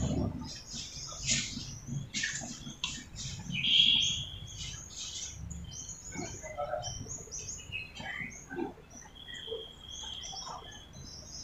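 Small birds chirping in quick, high calls, with a longer thin whistled note about four seconds in and another near the end.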